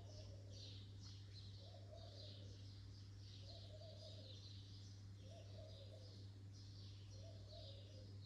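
Faint outdoor birdsong: small birds calling in short, high, repeated phrases, with a lower call repeating about every second and a half.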